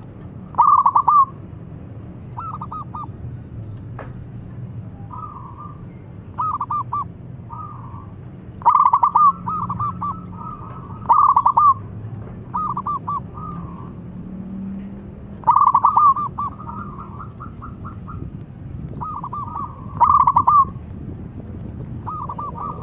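Zebra doves (perkutut) cooing in short phrases of four or five quick staccato coos, repeated every two to four seconds. Some phrases are loud and close, others fainter. The song is the clear 'crystal' voice prized in a caller bird that sets rival doves singing.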